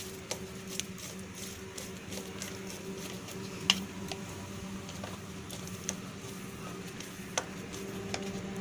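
Light metallic clicks and taps of a T-handle socket wrench working the bolts of a motorcycle engine's side cover as they are run in by hand, with two sharper clicks, one a little before halfway and one near the end. A steady low hum runs underneath.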